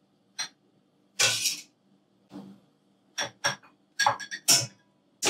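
Metal ladle clinking against a metal mixing bowl and glass tumblers as egg custard mixture is ladled into the glasses: a string of short, separate clinks and knocks, with one longer, hissier sound about a second in.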